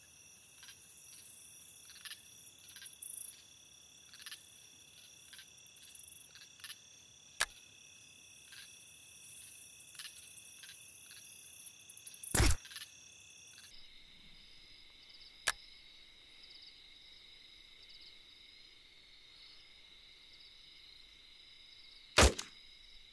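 Steady high-pitched chorus of night insects, the trilling shifting in pitch about 14 seconds in, with scattered faint clicks. Two sharp, loud cracks stand out, one about 12 seconds in and one just before the end.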